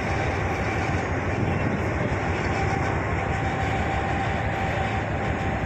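Wind rushing over the microphone, a steady rumbling noise, with a faint thin steady whine behind it.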